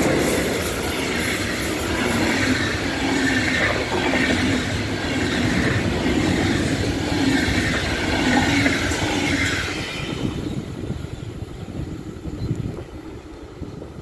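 Passenger coaches, including couchette cars, of a locomotive-hauled train rolling past close by, their wheels running steadily on the rails. The sound falls away about ten seconds in as the end of the train passes.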